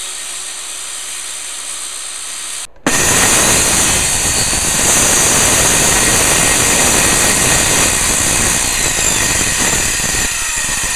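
Circular saw running and cutting through a particleboard panel, a steady saw noise. After a momentary break about three seconds in, it comes back much louder and stays steady.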